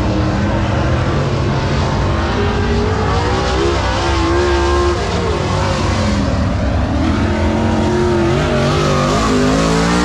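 Dirt late model race car engines running on track, revving up and easing off in turn, with several engine pitches rising and falling against each other.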